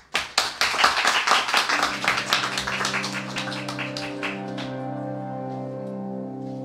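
A small audience clapping, loudest at first and dying away about four and a half seconds in. About two seconds in, slow, held piano chords begin and carry on under the fading applause.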